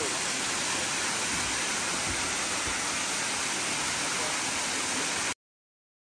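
Mountain waterfall pouring down a rock cliff: a steady rushing noise that cuts off abruptly about five seconds in.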